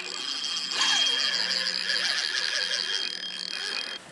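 Spinning fishing reel whirring steadily with a constant high tone as the line is worked. It stops near the end.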